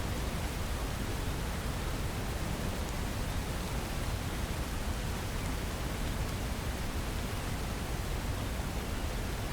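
Steady rain: an even, unbroken hiss with a strong low rumble underneath, and no separate thunderclap.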